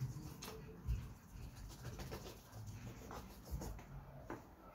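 Doves cooing softly in repeated low calls, with a few light taps and clicks.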